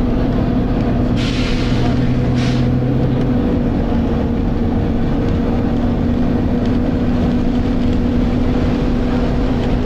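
Volvo B9TL bus's six-cylinder diesel engine running hard under way, heard from inside the passenger saloon, with its cooling fan on and a steady whine throughout. A lower hum drops out about three seconds in, and there are two short hisses between one and three seconds in.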